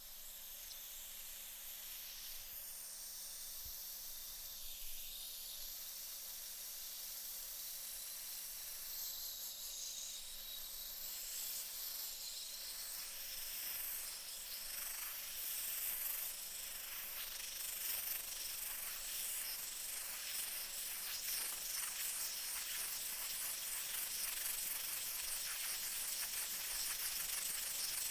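Pressure cooker venting steam: a steady, high-pitched hiss that slowly grows louder, turning uneven and spitting in the second half.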